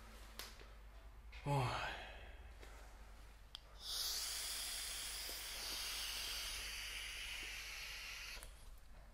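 A short rising squeak about a second and a half in, then a long steady blowing hiss lasting about four and a half seconds that cuts off near the end, as smoke is blown over the set.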